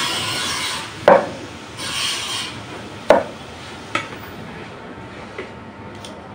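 Hand peeler scraping the skin off a wax gourd in rasping strokes, with sharp knocks about one and three seconds in and fainter ones after.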